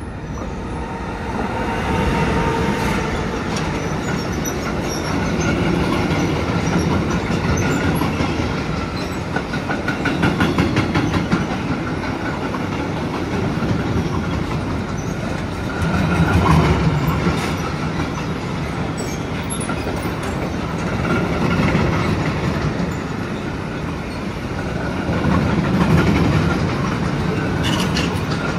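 Train passing close by on the tracks, its loudness swelling and easing in waves every few seconds, with wheels clicking rapidly over the rail joints about ten seconds in.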